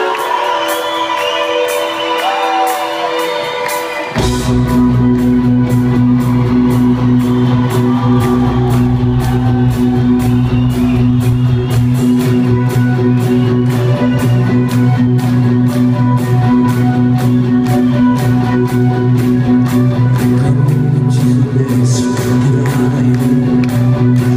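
Live band in a large arena playing through the PA: a quieter instrumental intro, then about four seconds in the full band comes in with heavy bass and drums keeping a steady beat, with guitar.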